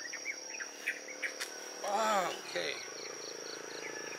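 Steady high-pitched drone of insects in roadside vegetation, with short chirping calls in the first second and a quick run of chirps after the middle. A brief human voice sounds about halfway through and is the loudest thing.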